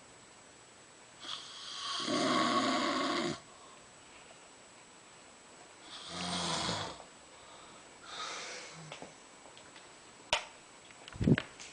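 A woman snoring in her sleep: a long rasping snore about a second in, a shorter one around six seconds, and a fainter one after it. Near the end come a sharp click and a short low thump.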